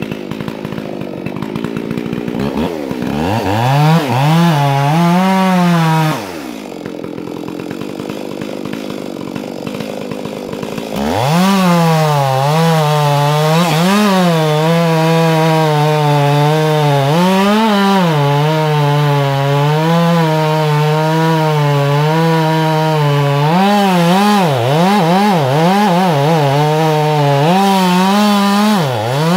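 Two-stroke chainsaw revved briefly, dropping back to idle for a few seconds, then held at high revs for most of the rest, its pitch dipping now and then as the chain loads in the wood of a tree cut.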